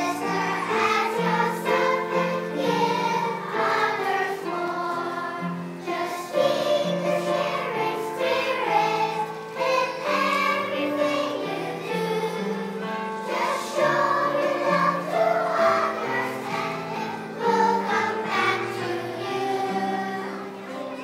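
Children's choir singing a song in unison, phrases of held notes with short breaks between them.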